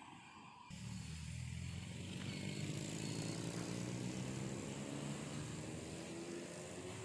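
A car's engine running as it passes, cutting in suddenly about a second in, with its engine note slowly climbing in pitch as it accelerates.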